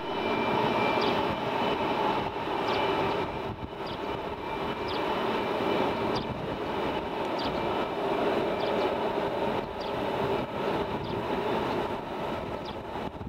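F-22 Raptor jet engines idling on the ramp: a steady whine with several held tones over it. Short high chirps come about once a second.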